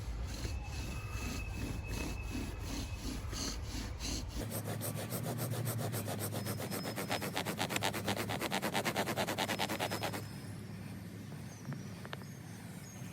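Bow drill at work: a farkleberry spindle grinding in the fireboard notch under back-and-forth bow strokes. The strokes speed up and get louder about four seconds in, then stop about ten seconds in.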